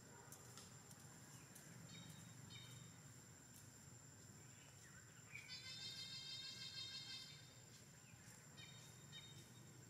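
Faint forest ambience: a steady high thin tone over a low hum, with short animal calls around two and nine seconds in and a longer, louder call with several stacked pitches from about five to seven seconds in.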